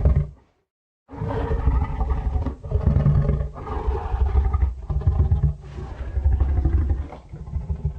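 Designed King Kong giant-gorilla roar sound effects: a roar breaks off just after the start, and after a short silence a long, deep roar follows in five or six pushes, each breaking off after about a second, fading out at the end.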